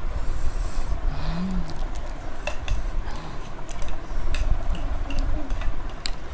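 Spoons clinking and scraping on plates while eating, a scatter of sharp light clicks that thickens from about halfway through, over a steady low background rumble.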